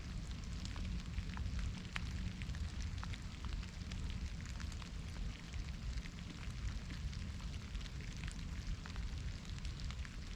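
Soft rain falling steadily, many separate drops tapping, over a low rumble.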